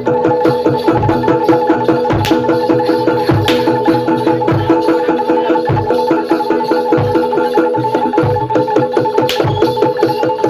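Live jaranan accompaniment: hand drums and gamelan-style percussion beating a fast, driving rhythm, with deep drum strokes about once a second under a steady held tone.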